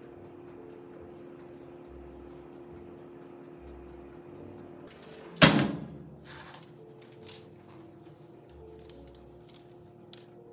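A metal baking sheet clanks loudly once against the countertop convection oven's rack as it is slid out with oven mitts, about halfway through, and rings briefly. A couple of light clicks follow, over a faint steady hum.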